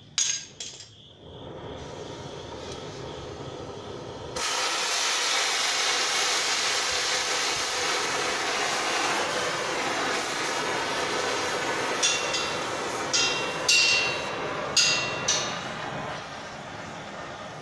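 Oxy-acetylene cutting torch being lit and adjusted: a few sharp pops as it lights, a softer hiss from the yellow acetylene flame, then about four seconds in a sudden louder, steady roaring hiss as the oxygen is opened for a blue heating flame. Near the end, several sharp ringing clinks sound over the hiss.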